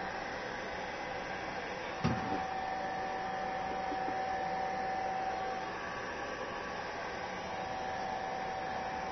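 Hair dryer running steadily, a constant rushing hum with a steady whine in it. A single short knock about two seconds in.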